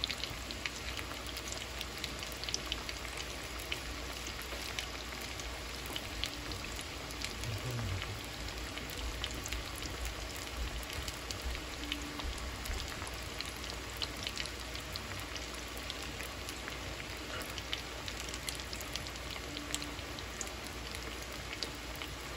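Raw-cut potato sticks frying in oil in a frying pan: a steady sizzle dotted with many small pops and crackles.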